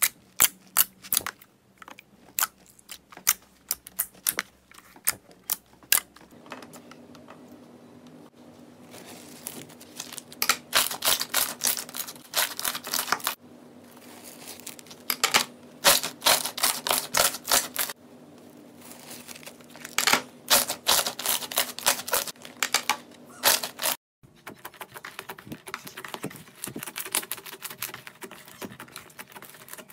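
Slime being squeezed and pressed by hand, giving rapid runs of sharp clicks and pops in bursts of a few seconds, with a short break near the end.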